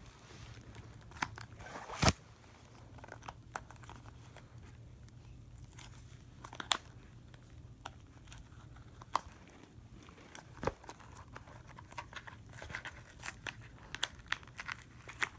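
Scissors snipping and crunching through a knife's plastic and card packaging: scattered sharp snips and crinkles, the loudest about two seconds in and again near seven seconds. A ceiling fan hums low and steady underneath.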